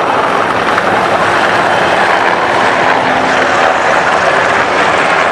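Two Austrian Armed Forces S-70 Black Hawk helicopters passing low overhead: a loud, steady rotor and turbine noise.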